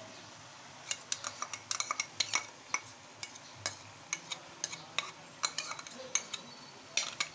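Irregular sharp clinks and taps of a utensil against a metal bowl and steel karahi as yogurt is scraped out into the pan of chicken and spices.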